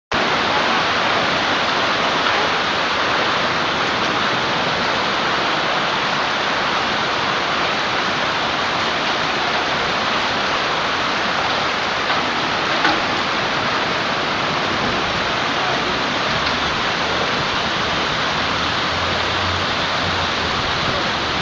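Hailstorm: a dense, steady clatter of hailstones, mixed with rain, pelting down onto surfaces, with one sharper knock about 13 seconds in.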